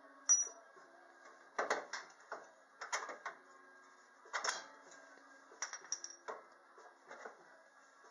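Sharp metal-on-metal strikes and clanks from work on the front suspension, about eight blows at uneven intervals, each with a short metallic ring.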